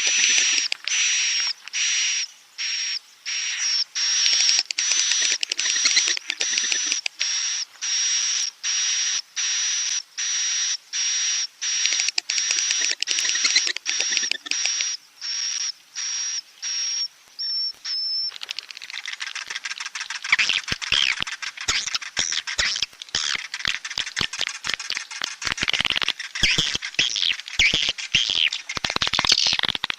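Recorded swiftlet roosting calls (a swiftlet-house lure track). For about the first two-thirds, buzzy chirps repeat evenly at nearly two a second. Then it shifts into a denser, irregular twittering chatter.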